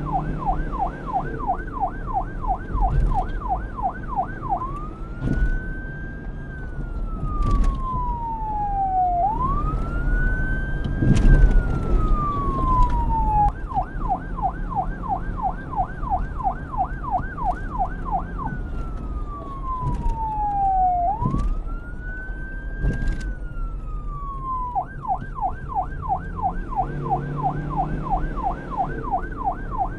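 Police car siren switching back and forth between a fast yelp and a slow wail: yelp at the start, two long rising-and-falling wails, yelp again about halfway, one more wail, then yelp near the end. A low rumble runs underneath, with a few brief knocks.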